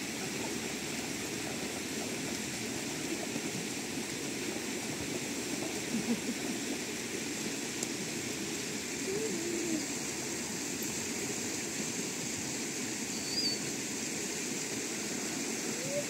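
Steady rush and splash of river water stirred by a swimmer moving through it.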